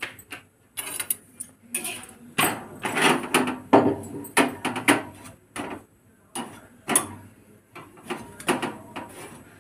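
Metal tongs tapping, clinking and scraping against a flat roti griddle while a roti is turned over a gas flame: a quick, irregular run of sharp knocks and short scrapes.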